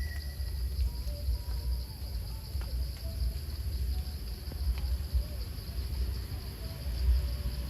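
Steady evening insect chorus of crickets, a continuous high trill, with scattered short chirping calls over it. A low rumble on the microphone is the loudest part.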